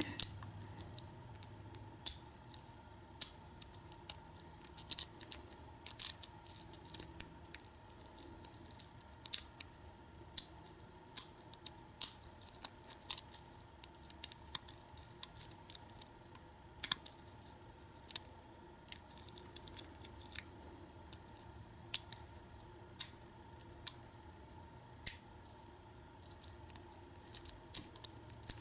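Hook pick and tension wrench working the pin stack of a Kwikset-keyway lock cylinder during single pin picking: small, sharp metallic clicks and ticks at irregular intervals, sometimes several in quick succession.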